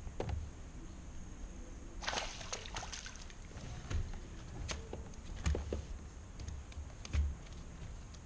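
Water splashing and sloshing beside a fishing kayak, loudest in a burst about two seconds in, with scattered light clicks and a few low knocks.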